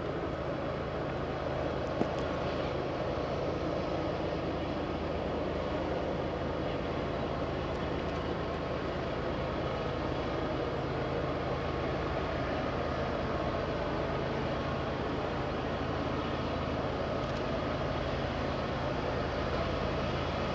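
Two distant GE diesel-electric locomotives working under load as they climb a grade, a steady low drone that grows slightly as the train approaches. There is a single faint click about two seconds in.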